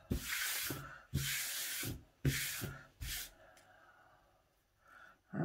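A hand brushing across a plastic cutting mat in about four quick swishing strokes, sweeping away loose sinamay threads.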